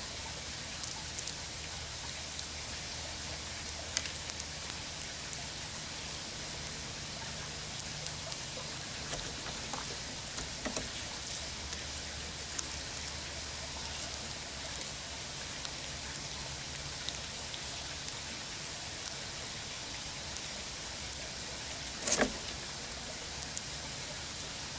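Grey squirrel cracking sunflower seed shells with its teeth: irregular small crisp clicks over a steady hiss, with one louder crack near the end.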